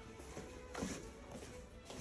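Quiet background music, with two soft knocks, one about a second in and one near the end.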